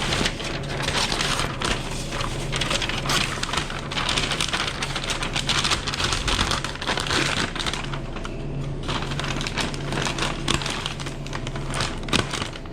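Busy restaurant kitchen line: continuous crackling and rustling with many small clicks over a steady hum from the kitchen's ventilation.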